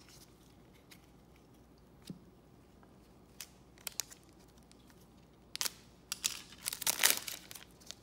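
Trading-card pack's foil wrapper being torn open and crinkled: a dense crackle starting about five and a half seconds in, after a few light clicks of cards being handled.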